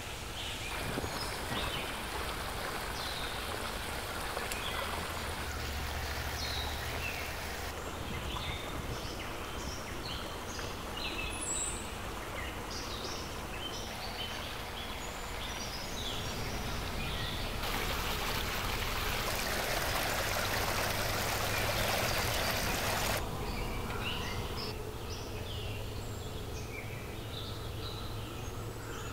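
Flowing stream water with small birds chirping throughout. The water is loudest for a few seconds just past the middle.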